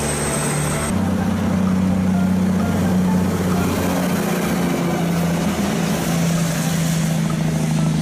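Loaded logging truck's diesel engine running as it drives along a road: a steady low drone with road noise.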